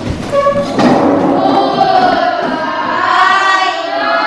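A class of students' voices in unison, a long drawn-out sing-song chant with many voices blending.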